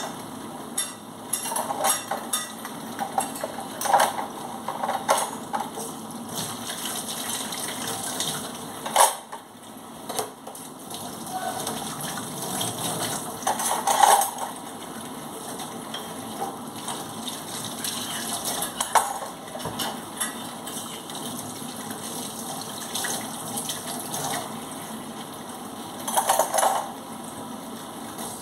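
Washing up at a stainless-steel sink: a tap runs in a steady thin stream while cutlery and dishes clink and knock against each other and the steel basin, with a few louder clatters.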